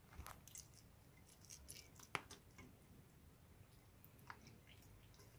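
Near silence, with faint wet squishes and small clicks of warm melted cheese curd being squeezed and worked in bare hands, and one sharper click about two seconds in.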